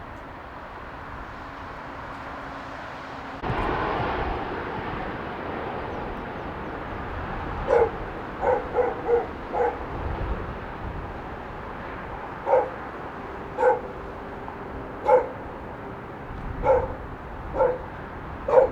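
A dog barking about a dozen times, starting about eight seconds in, with a quick run of barks and then single barks every second or so, over a steady outdoor rushing noise. The rushing noise rises suddenly a few seconds in.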